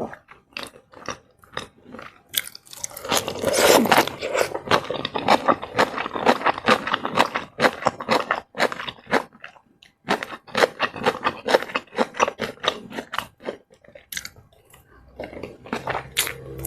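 Close-miked eating sounds: chewing and crunching mouthfuls of food, in rapid crackly runs with a couple of brief pauses.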